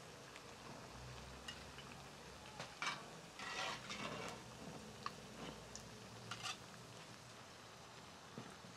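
Potato-and-tuna patties frying faintly in hot oil in a clay cazuela, with a few soft scrapes and clicks of a metal slotted spatula against the pot as patties are lifted out, the longest scrape about three and a half seconds in.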